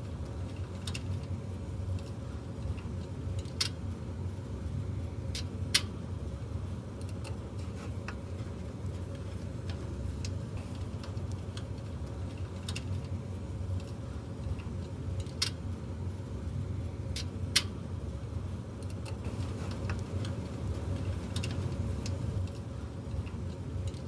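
The squirrel-cage blower fan of a Great World GW-2068 electric fireplace heater runs with a steady hum on its cool-down cycle after being switched off; its motor ends are freshly greased. Occasional sharp clicks and taps come as the metal case is screwed together and handled.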